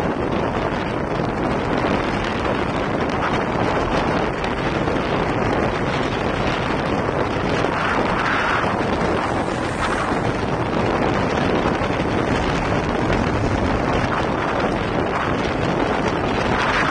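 Steady rushing wind noise on the microphone of a bicycle-mounted camera, from riding at about 40 km/h.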